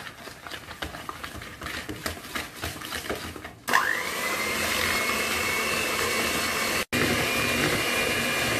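Tefal electric hand mixer beating eggs and sugar in a plastic bowl. The first few seconds are irregular clicking and scraping of the beaters in the bowl. About three and a half seconds in, the motor runs up quickly to a steady high whine that holds to the end, with one very brief cut-out near the end.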